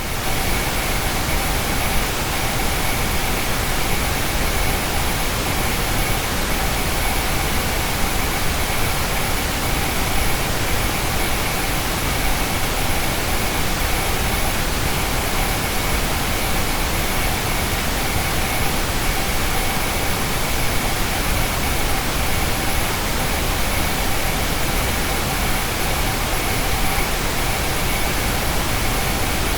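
Engineered tinnitus masking noise: a steady, even hiss spread across the whole range, with a few faint steady tones running through it.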